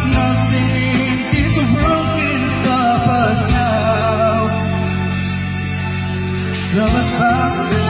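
A man, a dual-voice singer, sings a song into a handheld microphone over steady backing music that holds long low notes. His voice glides through long drawn-out lines, drops back for a moment about three quarters of the way through, and comes in again near the end.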